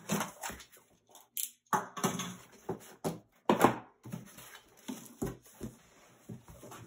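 A corrugated cardboard shipping box being opened by hand, its flaps pulled open with irregular scraping, rustling and a few sharp knocks.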